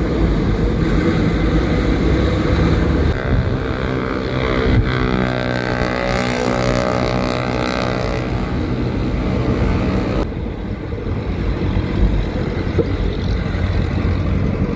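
Road traffic with wind rumbling on the microphone while cycling along a city road. From about three seconds in, a passing motor vehicle's engine drone rises to its loudest near the middle and dies away by about ten seconds, its pitch falling slightly.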